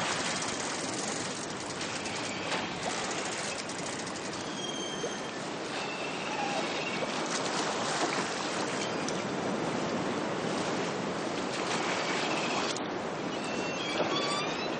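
Sea rushing and breaking along the bow of a sailing brig under way in strong wind: a steady hiss of water and spray. A few faint high squeaks come about a third of the way in and again near the end.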